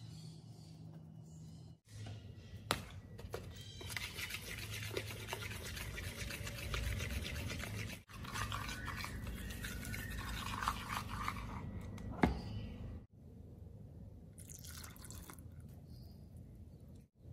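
Wire balloon whisk beating a flour batter in a bowl, with fast, even scraping strokes and a couple of sharp knocks against the bowl.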